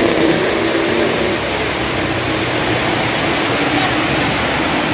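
Heavy rain pouring down on a street, with a motorcycle engine passing and fading away over the first second or two.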